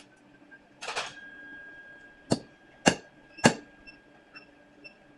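A hand hammer striking a steel punch set on a steel bar three times in quick, even succession, each blow a sharp metallic clank with a faint ring after it, marking where a hole will go. A short scrape of metal being shifted into place comes just before the blows.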